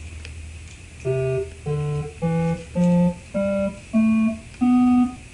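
Portable electronic keyboard played one key at a time: seven evenly spaced held notes stepping upward like an ascending scale, over a faint low hum.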